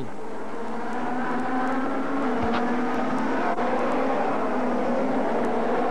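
ITC touring-car racing engine at speed, holding a steady note that wavers slightly in pitch. A brief low thump comes about two and a half seconds in.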